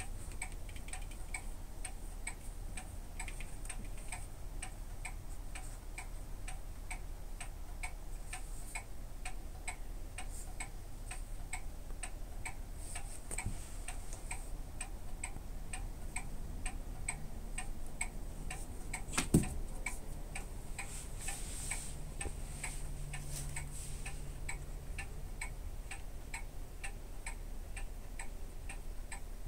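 Clock ticking steadily, about two ticks a second, with one sharp knock about 19 seconds in.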